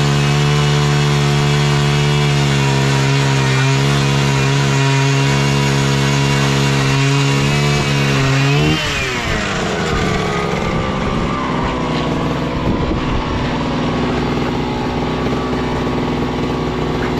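Gas-powered ice auger's small engine running at high revs, then throttling down with a falling pitch about nine seconds in and running on at low revs.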